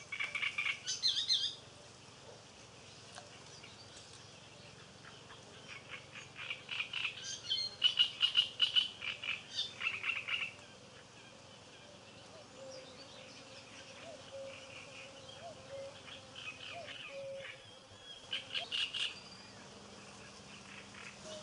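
Frogs croaking from the reeds in bouts of fast, rapidly pulsed calls: a short bout at the start, a longer, louder one from about six to ten seconds in, and a brief one near the end.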